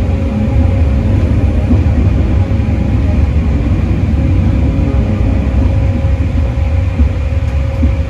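Schoma maintenance locomotive running along the track, heard from on board: a loud, steady low rumble with a steady hum above it.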